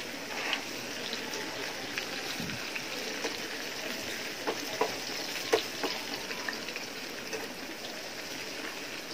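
Sliced onions deep-frying in hot sunflower oil in a pan: a steady sizzle with scattered small crackles.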